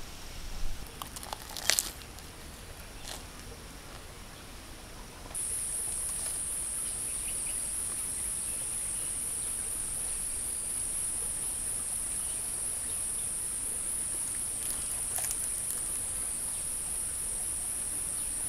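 Insects droning: a steady high-pitched insect chorus starts suddenly about five seconds in and holds. Before it, two sharp clicks sound within the first two seconds.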